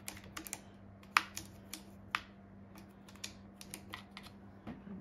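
Irregular light clicks and taps from hands handling the opened sewing machine, the sharpest a little over a second in, over a faint low steady hum.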